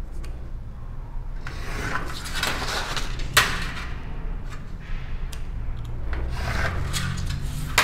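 Leatherworker's cutting knife (chaveta) drawn along a steel ruler through kraft-card pattern paper on a zinc sheet: several scraping strokes starting about a second and a half in, with one sharp click about halfway through.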